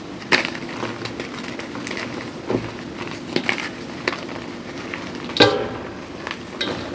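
Irregular small clicks and crackles from close-miked objects being handled, over a steady low hum, with one louder, sharper crack about five and a half seconds in.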